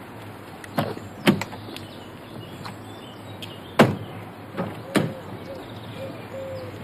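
A car door on a BMW saloon slamming shut once, hard, about four seconds in, with a few lighter knocks and clicks before and after.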